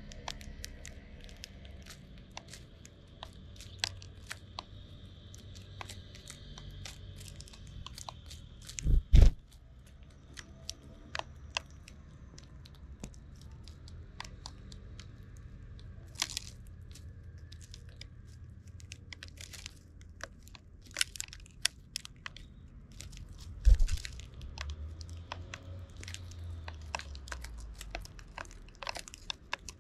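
Eurasian tree sparrows pecking at birdseed in plastic trays: a scattered run of sharp little clicks and cracks that grows busier as more birds join. Two loud low thumps, about nine seconds in and near twenty-four seconds, are the loudest sounds.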